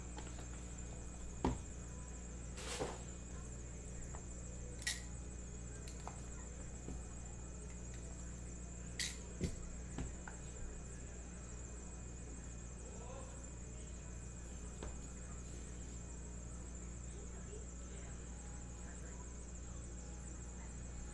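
A handful of soft taps and scrapes from cardboard trading-card boxes being opened and slid apart by hand, over a steady low hum with a faint high whine.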